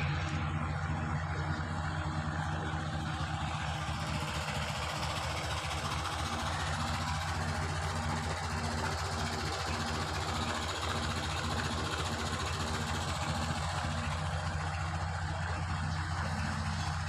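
A stationary Petter diesel engine running steadily at an even speed, its low, even engine note unbroken throughout.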